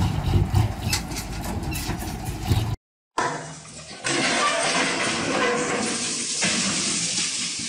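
A dump truck's diesel engine running with a low rumble and clatter as its raised bed tips out soil. After a brief cut to silence, a long rushing, crashing noise as a tractor's trailer overturns off a track into the brush, fading toward the end.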